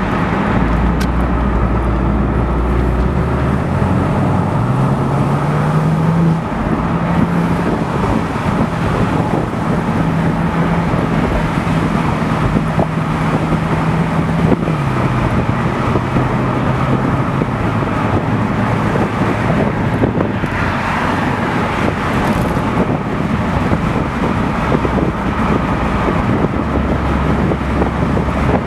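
Car in motion, heard from inside a Porsche 911 Turbo Cabriolet of the 997 generation: steady road and wind noise under the hum of its twin-turbo flat-six. The engine tone rises in pitch a few seconds in as the car accelerates, holds steady, then steps down about halfway through.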